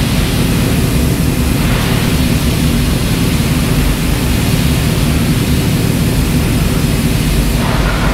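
Pressure washer running, its high-pressure water jet blasting the rear chain and sprocket of a Suzuki Hayabusa to strip off the grime: a loud, steady hiss of spray over the low, even hum of the washer's pump.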